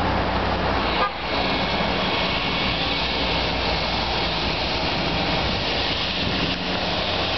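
City street traffic: vehicle engines running with a steady low hum under a dense wash of road noise, with a short horn toot about a second in.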